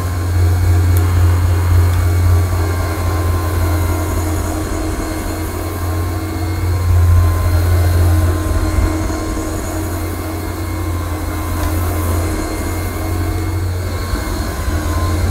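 AirCraft PowerGlide cordless hard floor cleaner running, its twin microfibre pads spinning against ceramic floor tiles with a steady low hum and rumble that swells and eases a little as it is pushed about.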